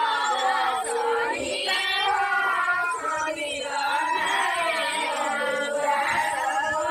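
Several high voices singing together in a continuous chant-like song.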